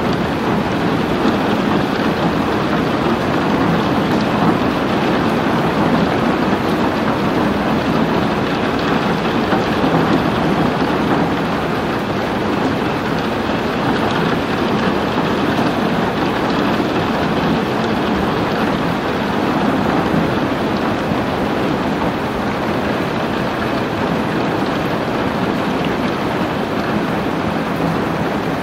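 Steady heavy rain, an even, unbroken rushing hiss.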